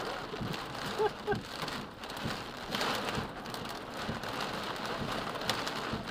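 Heavy storm rain drumming on a car's roof and windows, heard from inside the car as a steady wash of noise with many separate sharp drop hits.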